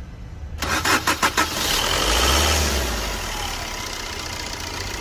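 Chevrolet Enjoy engine cranking briefly on the starter motor, catching about a second and a half in, the revs flaring briefly, then settling into a steady idle.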